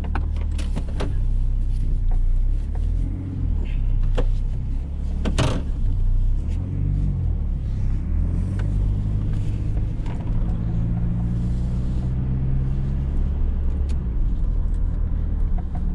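GMC Sonoma pickup driving slowly, heard from inside the cab: a steady low engine and road rumble whose pitch rises and falls, then holds steady for a few seconds. A sharp click sounds about five and a half seconds in.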